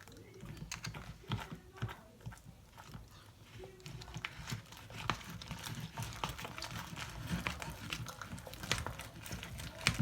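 Homemade slime being stirred and worked by hand, making many irregular sticky clicks and wet smacks.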